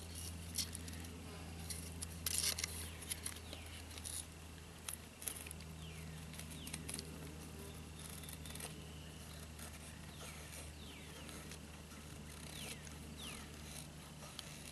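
Gerber Bear Grylls Ultimate Pro knife shaving curls down a stick to make a feather stick: irregular short scraping strokes of the blade on wood, the loudest cluster about two and a half seconds in. A low steady hum runs underneath.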